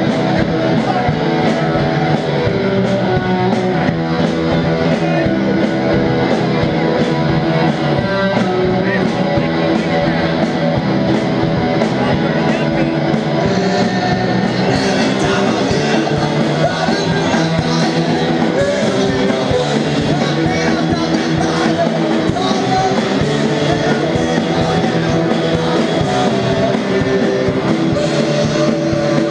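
Live rock band playing: electric guitar, bass guitar and drums. The cymbals get brighter and busier about halfway through.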